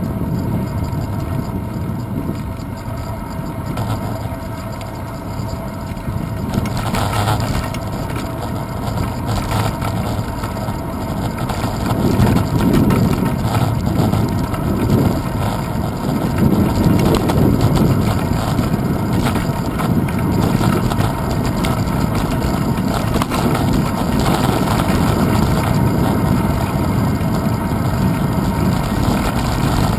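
Wind buffeting and road rumble picked up by a handlebar-mounted GoPro Hero 2 on a moving bicycle, a steady low rumble that grows louder and more gusty in the second half.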